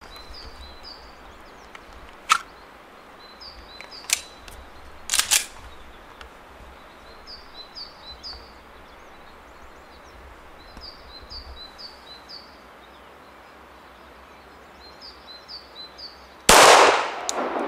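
Pistol shots from a 9 mm Glock 34: three single sharp reports about two seconds apart, then a quick pair, and a much louder, longer report near the end that rings on. Between the shots a small bird sings short high chirping phrases again and again.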